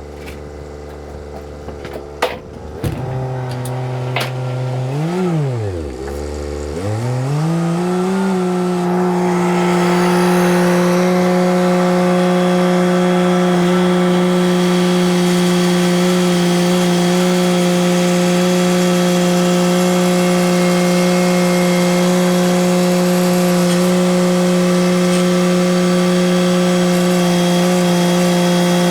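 Engine running: its pitch dips and comes back up about five seconds in, then climbs to a high speed that it holds steadily.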